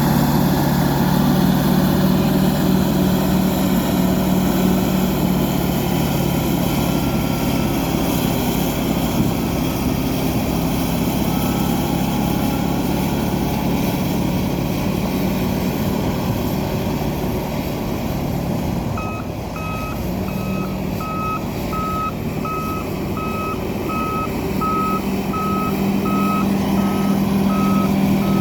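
Fiat-Kobelco crawler bulldozer's diesel engine running steadily under work. About two-thirds of the way in, the engine note dips and a reversing alarm starts beeping about one and a half times a second as the dozer backs up, with the engine pulling harder again near the end.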